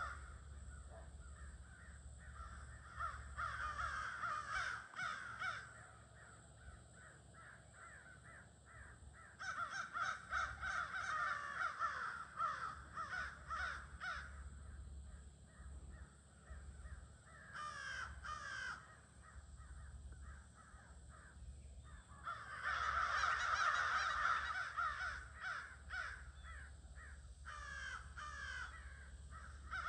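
A flock of crows cawing in the trees, many calls overlapping in waves that swell and die down to quieter lulls several times. A faint steady low hum runs underneath.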